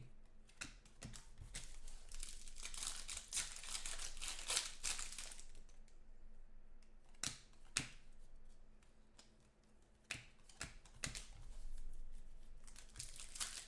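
Foil trading-card pack wrapper crinkling and tearing as a pack is opened and cards are handled, with a few sharp clicks in the middle.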